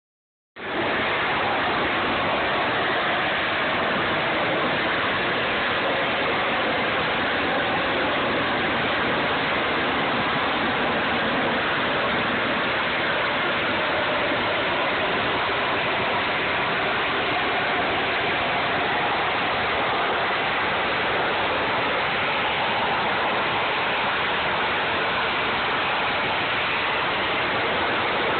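Harrier jump jet's Pegasus turbofan engine noise: a loud, steady, unbroken rushing sound that holds one level throughout. It starts about half a second in.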